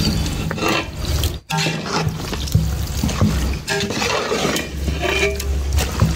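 Wet squelching and scraping of a spoon mixing raw chicken with curd and spice powders in a large metal pot, working in the marinade. There is a brief break about a second and a half in.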